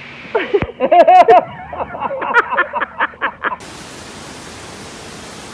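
A run of short, rhythmic squeaky sounds, then, about three and a half seconds in, a sudden cut to the steady rush of whitewater pouring through a rocky creek.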